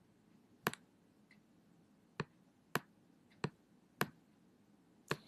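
Six short, sharp clicks at uneven intervals, with near silence between them.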